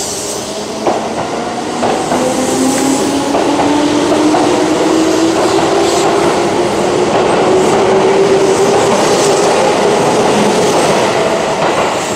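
Keihan electric commuter train pulling out and accelerating along the platform: a motor whine rising steadily in pitch over the clatter of the wheels on the rails, loudest mid-way and fading near the end as the last car goes by.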